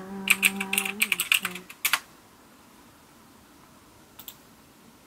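Rapid typing on a computer keyboard, about a dozen keystrokes in the first two seconds, over a held low tone. Then quiet, with a couple of faint clicks about four seconds in.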